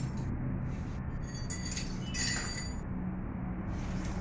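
Metal clinking twice in the middle, short bright strikes with a brief ringing, over a steady low background rumble.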